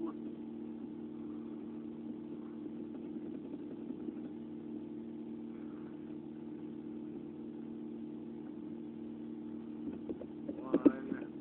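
A steady low hum, with a few clicks and a brief muffled voice about ten seconds in.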